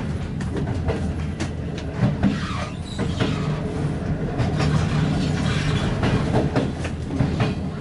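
Passenger train carriage rolling out of a station at low speed: a steady low rumble with irregular sharp clicks of the wheels passing over rail joints and switch points.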